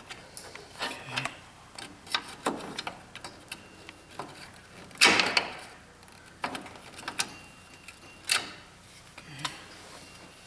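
Scattered clicks and knocks of a screwdriver and hand tools being handled, with a louder knock about five seconds in and another near eight seconds.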